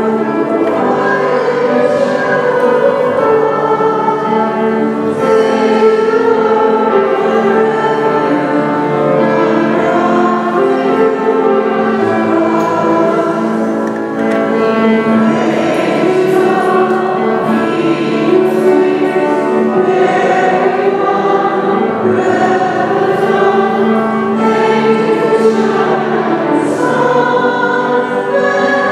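A choir singing sacred music, with long held notes in several voices.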